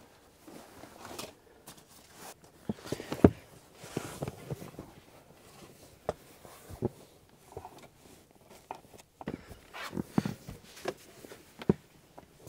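Rustling and soft thumps of folding foam mattress pads and bedding being handled and laid out inside a car's cabin. Scattered knocks come irregularly, the loudest about three seconds in.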